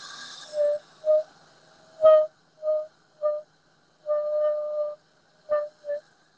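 A man's high falsetto squeals, all on one pitch: a string of short squeaks with one longer held note about four seconds in.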